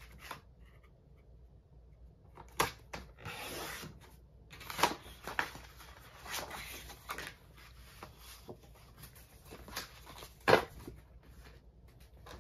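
Cardstock being cut and handled on a rotary paper trimmer: paper rustling and sliding, with clicks of the cutting head and trimmer and several sharp knocks, the loudest about ten and a half seconds in.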